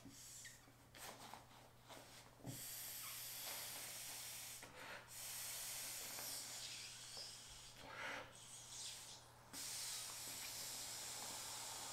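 Inflatable camping pillow, the ENO Headtrip, being blown up by mouth: long airy blows into its valve, broken by short pauses for breath.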